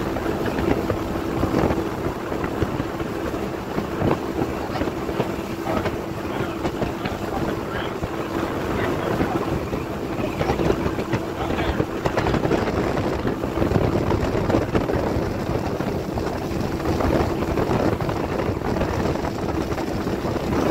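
Speedboat running at speed: a steady engine drone under the rush of water from the hull and wake, with wind buffeting the microphone.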